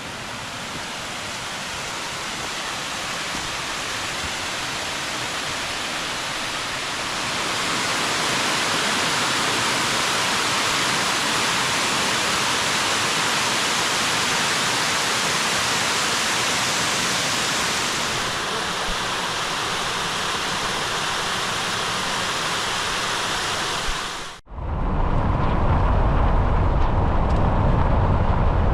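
Waterfall rushing in a steady, even roar that grows louder about a quarter of the way in. Near the end it cuts off abruptly into the low rumble of a car driving on the road.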